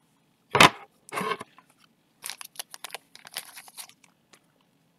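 A sharp knock about half a second in, then a run of crinkling and tearing sounds from wrapping or packaging being handled at the table.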